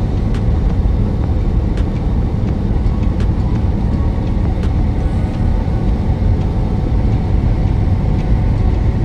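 Steady low rumble of a semi truck cruising at highway speed, heard from inside the cab, with a faint tick about every second and a half.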